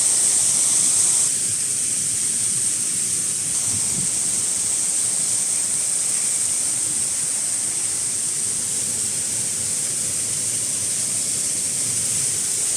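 Steady rushing roar of a waterfall, an even hiss of falling water with no pitch or rhythm. It eases slightly about a second in, then holds steady.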